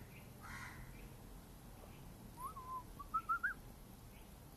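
A caged Irani jal songbird gives a short whistled phrase about two seconds in: a few notes that step upward in pitch, ending in three quick, louder whistles.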